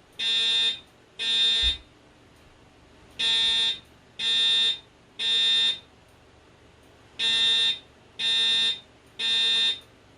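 Fire alarm voice-evacuation speaker sounding the temporal-three evacuation tone between spoken messages: three half-second beeps about a second apart, then a pause of about a second and a half, repeating.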